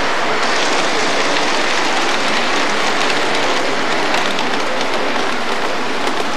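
O scale model steam locomotive and train rolling along the track, a steady rushing noise with faint ticking of wheels over the rail joints, heard through a constant loud hiss.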